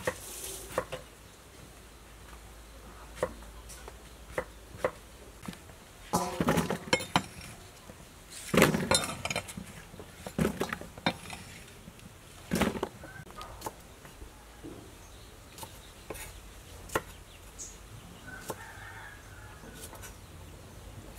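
Eggplant being cut with a kitchen knife and the chunks dropped into a stainless-steel bowl: scattered knocks and clinks, with a few louder spells of clattering between about six and thirteen seconds in.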